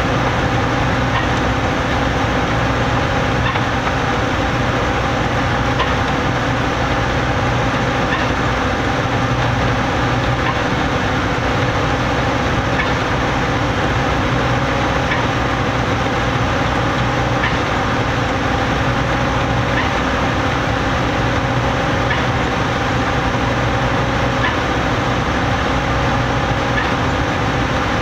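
A concrete mixer truck and a Putzmeister trailer concrete pump running together while concrete is pumped: a steady, even engine drone with a constant hum and a noisy wash of machinery, holding level with no breaks.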